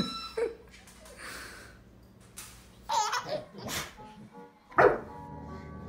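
A baby laughing and squealing in short bursts, three of them in the second half, the last the loudest, with music in the background.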